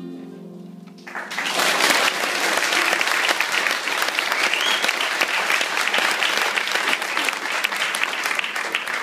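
Audience applauding at the end of a song: the last note of the music dies away, then clapping breaks out about a second in and carries on loud and steady.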